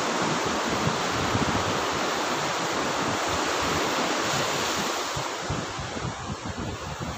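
Sea surf breaking and washing up a sandy beach, a steady rush of waves that eases slightly about five seconds in, with wind buffeting the microphone.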